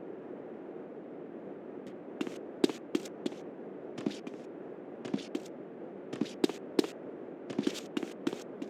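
Steady background noise with a run of sharp, irregular clicks or knocks starting about two seconds in, coming in small clusters of two or three.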